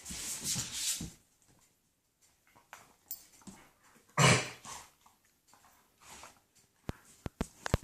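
German shepherds playing and making crazy noises: a noisy burst in the first second, a louder one about four seconds in, then a few sharp clicks near the end.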